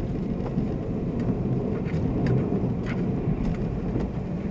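Running noise inside a 583-series sleeper train, heard from a lower berth above a motor car's bogie: a steady low rumble of wheels and running gear, with a few faint clicks.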